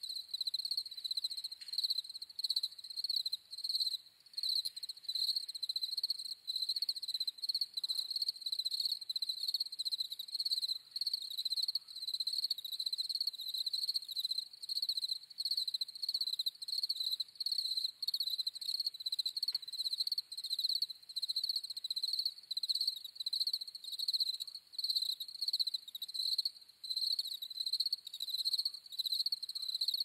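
Crickets chirping steadily in a fast, even rhythm: a nature ambience track.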